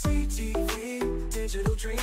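Background music with a steady beat: deep drum hits that drop in pitch, sustained keyboard chords and short melodic notes over a low bass.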